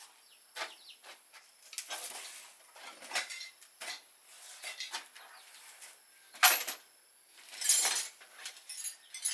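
Intermittent light clinks and clatters of hard objects striking one another, loudest about six and a half seconds in and again near eight seconds.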